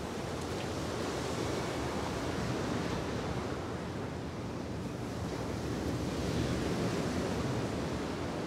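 Steady wash of ocean surf, swelling and easing slowly.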